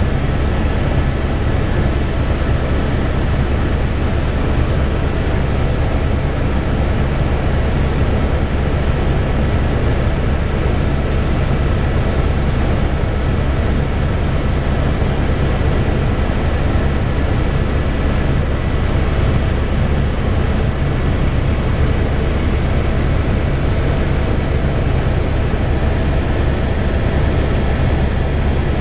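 Helicopter in flight: a loud, steady drone of rotor and engine, with a few faint steady high whines above the low rumble.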